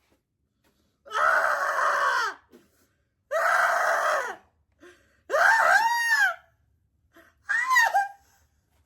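A person's voice screaming and wailing in four drawn-out cries, the later ones sliding up and down in pitch, with silence between them: a disgusted reaction to the taste of a snack.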